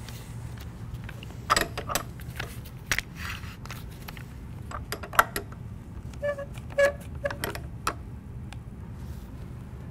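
Scattered clicks and light knocks of yellow one-handed bar clamps being handled and clamped onto a steel linear guide rail, with the ratcheting trigger clicking as the jaws are closed.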